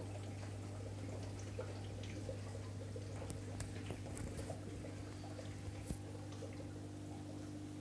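Steady low hum of aquarium equipment with faint water trickling and small drips, and one sharper click about six seconds in.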